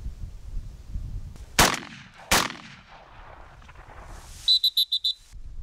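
Two shotgun shots about three quarters of a second apart, each trailing off in an echo. Near the end comes a quick run of short, high pips.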